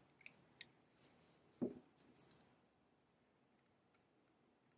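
Faint small clicks from metal tweezers and a watch being handled on a cloth mat as a plastic movement retainer is lifted off, with one soft low thump about one and a half seconds in.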